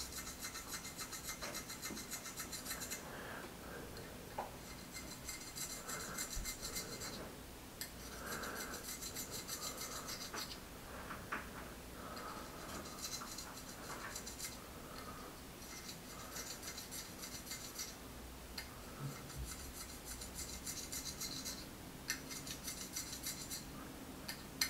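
Razor blade scraping along a RockShox Pike fork stanchion, shaving the raised burrs off scratches so they sit flush with the tube. A quiet, fine rasping in runs of two or three seconds with short breaks between strokes.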